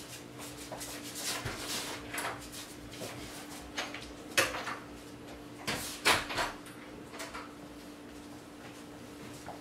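A house door being shut and handled at the lock: scattered footsteps and knocks, with the loudest clunks and clicks about four and a half and six seconds in. A steady low hum runs underneath.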